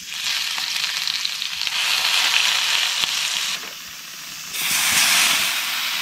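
Frozen mushrooms, Japanese Caesar's mushroom and summer bolete, sizzling as they go into hot olive oil in a frying pan over a wood fire. The steady frying hiss drops away for about a second midway, then comes back.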